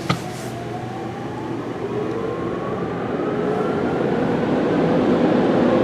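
Automatic car wash dryer blowers spinning up: a steady rush of air with a whine that slowly rises in pitch, growing louder throughout.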